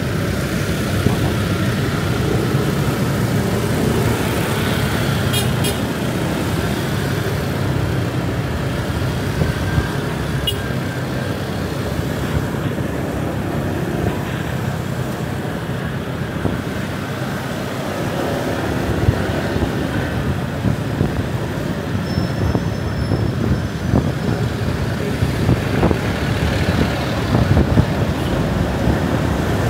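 Motorbike riding through city traffic: steady engine and road noise, mixed with the engines of the vehicles around it.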